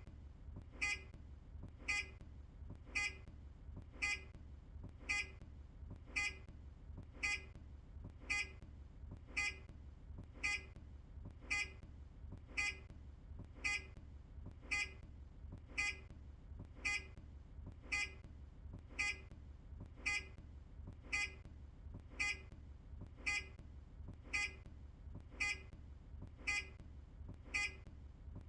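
Earlier Optare Solo bus's indicator sounder, a short electronic beep repeating evenly about once a second while the indicators flash, over a steady low hum.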